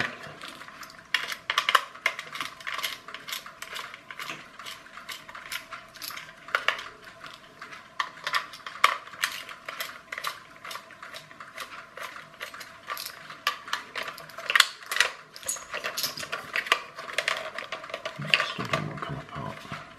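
Irregular small clicks, taps and scrapes of a metal precision screwdriver working on the screws of a plastic clockwork toy car, with the plastic body knocking as it is turned over in the hands.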